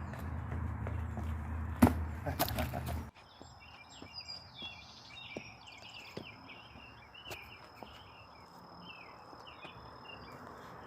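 A low rumble with a sharp knock and a few clicks, cutting off abruptly about three seconds in. Then birds chirping outdoors over a steady high insect drone, with scattered soft ticks of footsteps.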